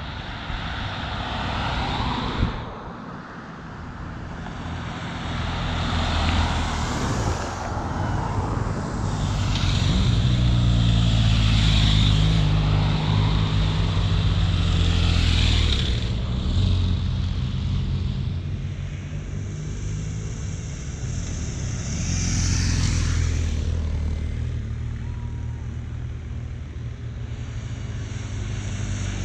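Road race escort vehicles, cars and motorcycles, passing one after another, each a swelling then fading rush of engine and tyres. A steady low engine drone runs under them, loudest in the middle.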